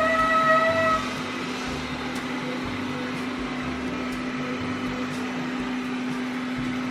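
Lydsto R1 robot vacuum-mop running with a steady, even hum as it cleans the floor. A short held tone sounds in the first second.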